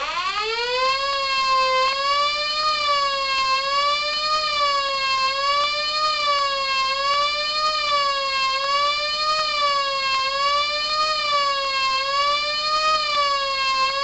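Homemade electronic mini tornado siren sounding its fast wail signal through four speaker cones. The tone starts suddenly, rises over the first second and a half, then swings up and down in pitch about once every second and a half to two seconds.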